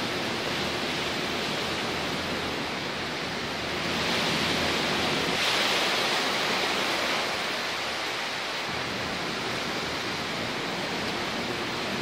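Strong, sustained wind ahead of an approaching hurricane, blowing as a steady rush. A gust swells about four seconds in and eases off a few seconds later.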